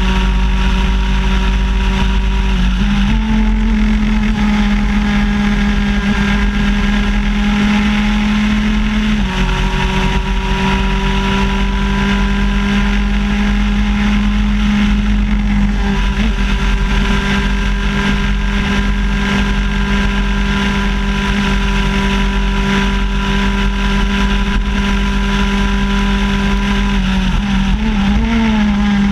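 Shifter kart's two-stroke engine running hard at a nearly steady high pitch, stepping slightly up about three seconds in, back down about nine seconds in, and wavering near the end. Heavy wind rumble on the onboard microphone underneath.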